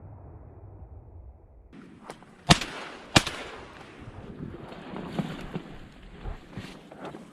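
Two shotgun shots fired in quick succession, about two-thirds of a second apart, each trailing off in a short echo over wind noise.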